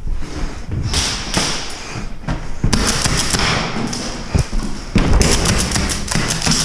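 Airsoft skirmish inside a building: a rapid run of sharp clicks and knocks from airsoft gunfire and BBs striking surfaces, over thumps of movement, with a dense burst of clicks near the middle.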